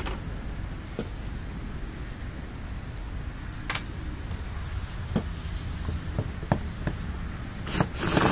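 Scattered light clicks and knocks of tools on the plastic housing of a handheld leaf blower being taken apart, with a short, louder burst of noise near the end.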